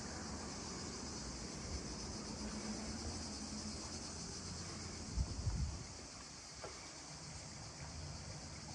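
Steady, unbroken high-pitched chorus of cicadas, with a few low rumbles about halfway through.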